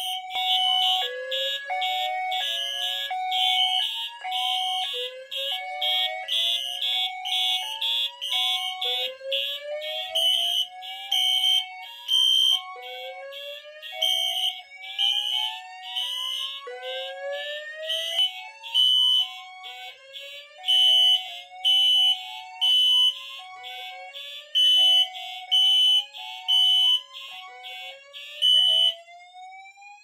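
Fire alarm notification appliances sounding together on a Notifier NFS2-640 panel in drill mode. A tone rising slowly in pitch repeats every few seconds over electronic horns pulsing about once a second, and all of them cut off near the end as the signals are silenced.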